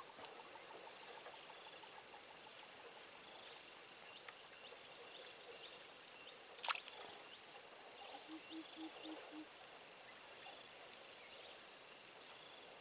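Steady high-pitched chorus of insects, with a short chirp repeating about once a second. A single sharp click about halfway through.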